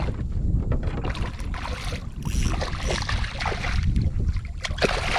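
Water splashing and sloshing around a kayak, with a few sharp knocks, over steady wind rumble on the microphone.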